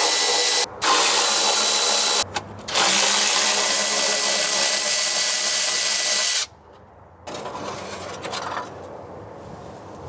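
A power tool runs in three bursts, the last and longest ending about six and a half seconds in, as it backs out the valve cover bolts on a 1959 International B-120's engine. It is followed by quieter scraping and handling noise.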